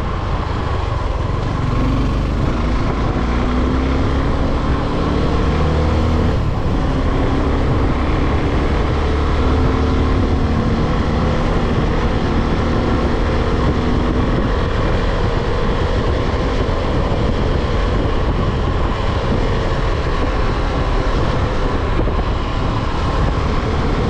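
Motorcycle engine running steadily on the move, its pitch drifting gently up and down in the first several seconds, under a heavy low rumble of wind on the microphone.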